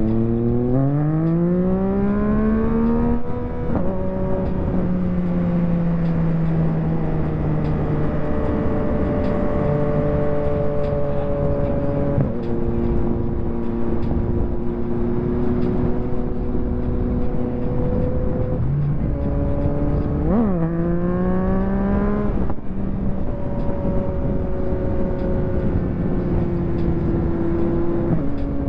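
2023 Yamaha MT-09 SP inline-three engine through a full Akrapovic race exhaust, heard from the rider's seat. The revs climb hard and drop with an upshift about three and a half seconds in. It then holds a steady, slowly sagging note with gear changes around twelve and nineteen seconds, a quick throttle blip near twenty seconds, then another climb and upshift. A haze of wind noise runs underneath.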